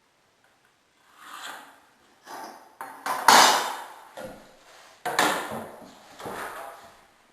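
Laminate flooring plank being handled, knocking and clattering: about seven irregular knocks, the loudest a little past three seconds in.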